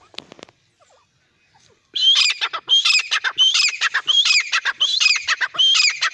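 Francolin (teetar) calling: a loud, harsh call phrase repeated about six times in quick succession, starting about two seconds in.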